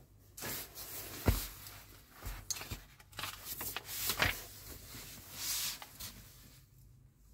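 Magazine pages being opened and turned by hand: several short paper rustles, with a couple of soft thumps as the booklet is handled.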